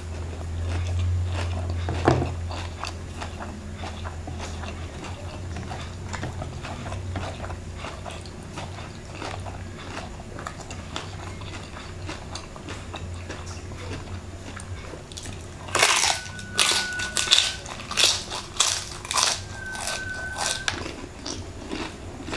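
Close-up chewing of crispy fried chicken skin, a steady run of small crunches. About two-thirds of the way through come five seconds of louder, crisp crunching bites.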